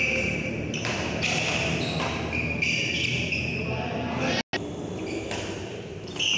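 Badminton rally: sneakers squeaking in short high chirps on the court floor and rackets striking the shuttlecock, over spectators' chatter.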